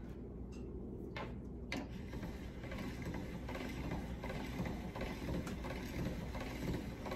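Hand-cranked pasta machine being turned steadily, its gears and cutting rollers grinding as a sheet of egg pasta dough feeds through the noodle cutter, with a few sharper clicks.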